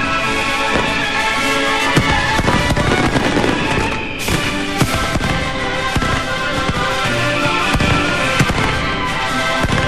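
Fireworks and firecrackers banging in quick irregular succession over music that plays throughout.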